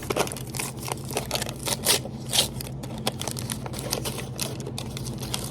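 Small plastic toy packaging being handled and opened by hand, a busy run of short clicks, rustles and crinkles, over a steady low hum.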